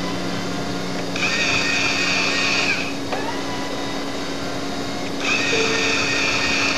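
Electric motor drive of a Ken's Power Caster rod-and-reel unit running in two separate runs of about two seconds each, each a steady whine, as the sip-and-puff controls pump the rod back and forth and wind the reel. A steady low hum runs underneath.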